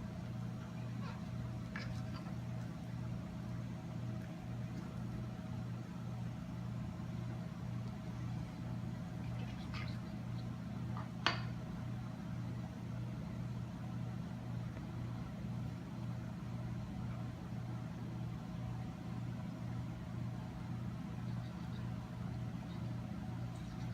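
A steady low hum, with a few light taps of a knife on a cutting board. The sharpest tap comes about eleven seconds in.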